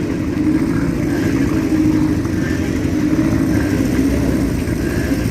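Vintage and classic motorcycle engines running steadily, several at once, as a group of bikes comes back down the hill.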